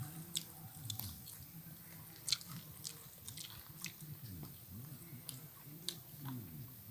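A person biting into and chewing home-made fried chicken, with faint, scattered crunches and mouth clicks.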